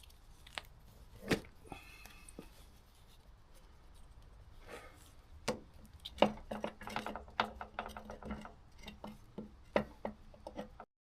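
Scattered sharp clicks and knocks of metal tools and parts being handled, with a quick run of rattling clicks in the middle and a few louder knocks.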